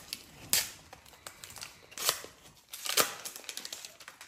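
A Panini Adrenalyn XL trading-card pack being torn open by hand. The wrapper rips and crinkles in three louder tears, about half a second, two and three seconds in, with smaller crackles between.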